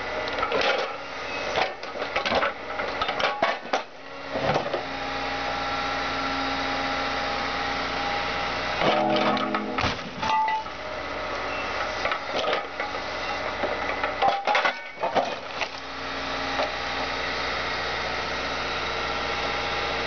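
Excavator's engine and hydraulics running steadily, with several bouts of crunching and banging as the excavator crushes a Volkswagen Jetta Mk2's body.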